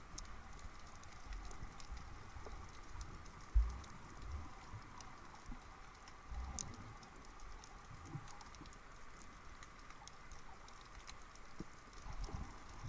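Underwater sound picked up by a submerged camera: a steady crackle of many small, irregular clicks, with dull low thumps from the water and the moving camera, the loudest about three and a half seconds in.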